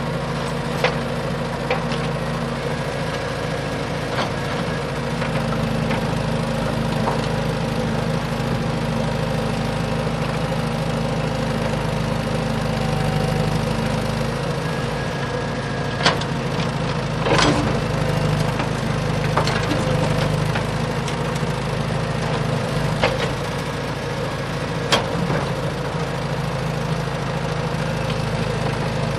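A motor running steadily with a low, even hum, broken by a few sharp clicks or knocks.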